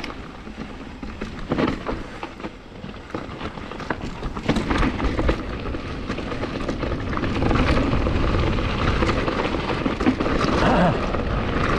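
Mountain bike descending a rough rock trail: tyres rolling over rock with frequent rattles and knocks from the bike, over a low wind rumble on the microphone that grows louder from about halfway through.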